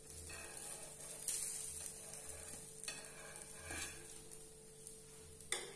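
Pancake batter sizzling in oil on a nonstick tawa, with a flat steel spatula scraping against the pan a few times as it is worked under the pancake's edge before turning.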